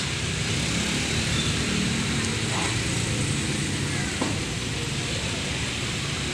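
Steady hiss of rain falling on wet ground, with a low rumble under it and one light tick about four seconds in.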